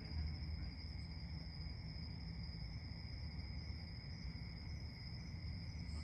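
Night insects trilling steadily at two high pitches, over a low steady rumble.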